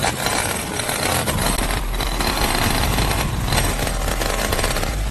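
Small engine running steadily, with a dense mechanical noise.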